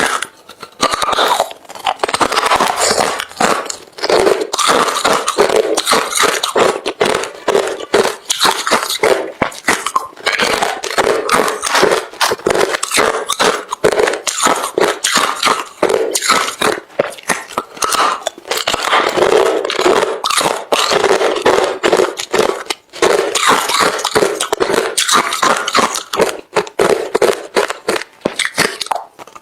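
Close-miked chewing of hard refrozen crushed ice: a rapid, dense run of loud crunches, bite after bite, with brief pauses now and then.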